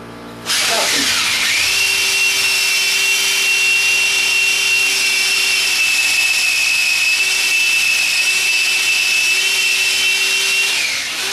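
Old electric drill boring into a concrete-block wall. The motor whines up to speed about half a second in, runs at a steady high whine with grinding noise for about ten seconds, and winds down near the end.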